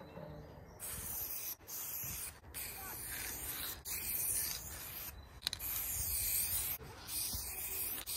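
Aerosol spray-paint can spraying an outline onto a wall: a series of hissing strokes starting about a second in, separated by short breaks.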